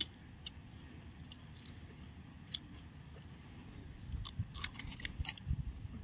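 Pani puri being crunched and chewed, crisp puri shells cracking in sharp clicks. The crunches come close together from about four seconds in.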